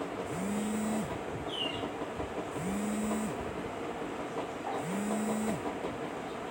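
A low machine hum that rises, holds about a second and falls, repeating about every two seconds, four times, over a steady hiss.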